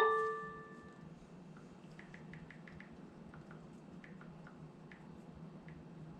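An electronic chime fades out in the first second. Then come faint, quick taps on a smartphone's on-screen keyboard in two short runs as a Wi‑Fi password is typed in.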